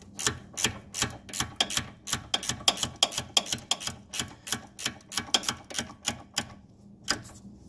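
Ratchet wrench clicking steadily, about three sharp clicks a second, as a Corvette's suspension ride-height adjuster bolt is turned to lower the car.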